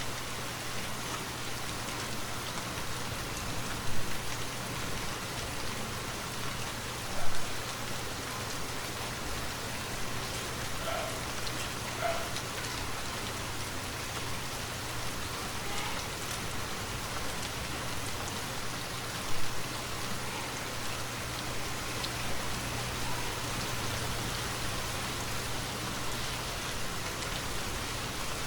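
Steady rainfall, an even hiss of rain on foliage and the ground. Three short, louder hits stand out: about four seconds in, about seven seconds in, and again about nineteen seconds in.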